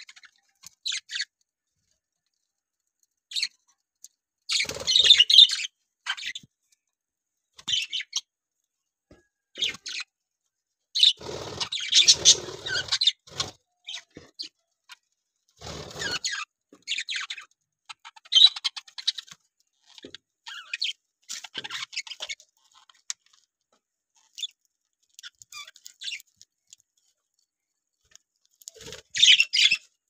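A flock of budgerigars chirping and chattering in short, irregular bursts with quiet gaps between. There are louder bursts about five seconds in, around twelve seconds and near the end.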